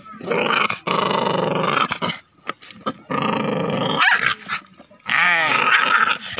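A puppy growling in several long, drawn-out growls with short breaks between them. The last growl, from about five seconds in, wavers rapidly up and down in pitch.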